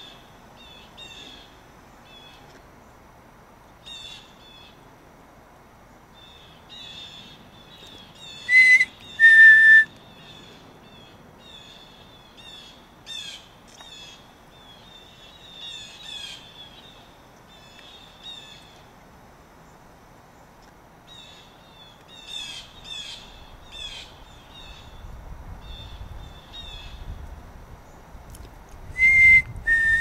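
Small birds chirping in short, repeated high calls, with two loud, clear two-note whistles, each a higher note falling to a lower one: one about nine seconds in and one near the end.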